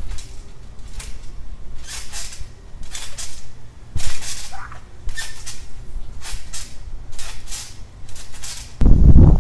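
Trampoline springs and mat creaking and squeaking with each bounce, about once a second, over a steady low rumble. A sudden loud low rumble comes near the end.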